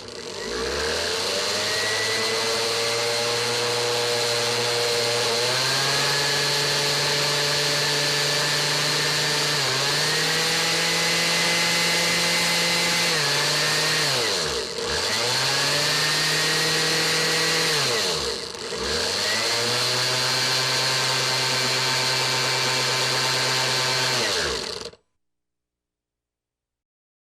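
A household appliance's electric motor running with a steady whirr and hiss, stepping up and down between speeds several times. Twice it winds down almost to a stop and spins back up, then it is switched off and dies away near the end.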